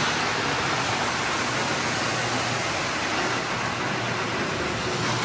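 1958 Lionel three-rail O-gauge toy trains running around the layout: a steady mechanical whir of motors and wheels on tinplate track, with a low hum beneath it.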